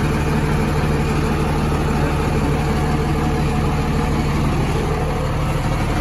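Heavy diesel truck engine idling steadily at close range.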